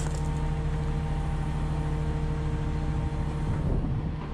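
Steady mechanical hum with a constant pitch and a low rumble beneath it, unchanging throughout.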